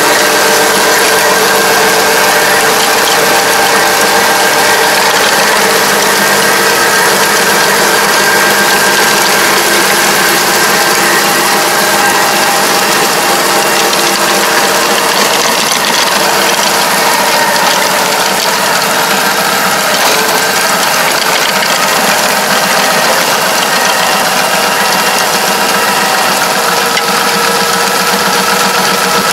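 A tractor's engine running steadily under load while it drives a Kobashi GAIA rotary ditcher, whose spinning rotor and gearbox churn through the soil cutting a ditch.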